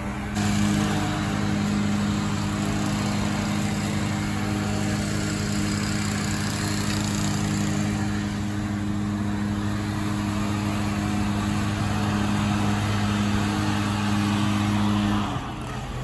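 An engine running steadily at a constant pitch, a low even hum over a noisy background. It starts suddenly about half a second in and cuts off shortly before the end.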